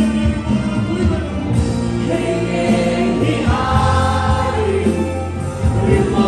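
A large congregation singing a worship song together in Mizo, many voices at once over a steady band accompaniment with held bass notes.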